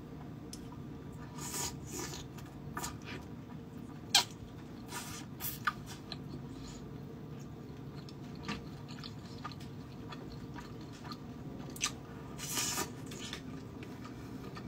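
Close-miked eating of soup dumplings: wet chewing and mouth smacks, with scattered short sharp clicks, the loudest about four seconds in.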